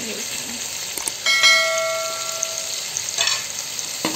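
Onion and tomato masala sizzling in oil in a metal pot as ground spices are tipped in. About a second in, something knocks against the pot and rings with a clear tone for over a second.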